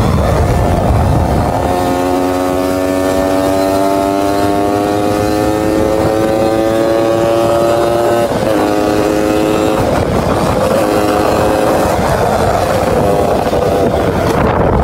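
Motorized bicycle's small petrol engine running hard at high revs, its whine climbing slowly in pitch for several seconds, dropping suddenly about eight seconds in, then carrying on unevenly.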